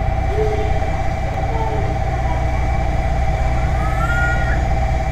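A steady electronic buzzing tone, typical of a station platform's train-approach warning, sounds without a break over a low rumble. A few faint voices come in near the end.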